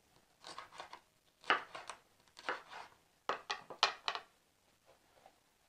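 Santoku knife slicing a red bell pepper into thin strips on a wooden cutting board: an uneven series of short, crisp knife strikes through the pepper onto the board, with a couple of fainter ones about five seconds in.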